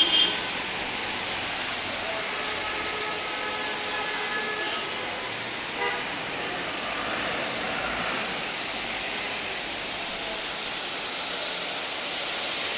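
Steady rain falling as an unbroken hiss. A short, louder horn-like toot comes right at the start, and faint vehicle horns sound for a few seconds about two seconds in.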